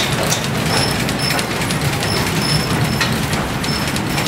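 Station platform canopy and fittings rattling steadily as the earthquake shakes the structure, with many small clicks, short high squeaks and a low rumble underneath.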